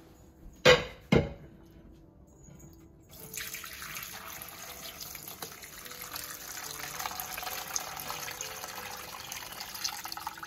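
Two sharp knocks about a second in, then from about three seconds in a steady pour of beef broth from a slow cooker's crock through a fine-mesh strainer into a bowl.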